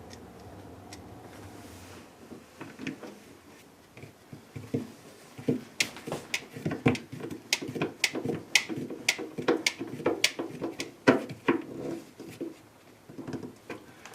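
Irregular clicks and light knocks of screws and plastic refrigerator liner parts being handled and fastened by hand, beginning about four seconds in after a quieter stretch.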